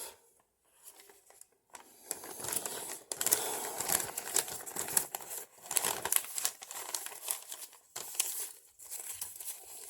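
Paper crinkling and rustling as sheets are handled and folded, with many small crackles, starting about two seconds in.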